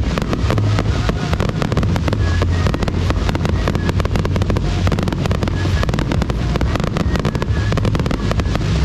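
Fireworks finale: a dense, unbroken barrage of overlapping shell bursts, crackles and deep booms.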